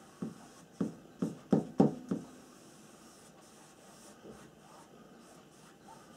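A paintbrush stroking and dabbing paint on a stretched canvas: about six quick soft thumps from the taut canvas in the first two seconds or so, then only faint brushing.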